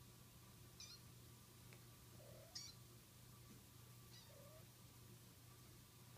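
Faint, short mews from kittens play-fighting: three brief high squeaks about one, two and a half and four seconds in, with a couple of lower mews between them.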